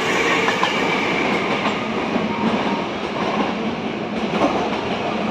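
Hankyu 7000-series electric train running past a station platform: a steady rumble of wheels on rail with occasional clicks.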